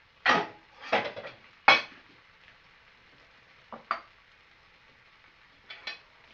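Cooking utensil knocking against a frying pan while rice is stirred in: three sharp knocks in the first two seconds, then a few lighter ones.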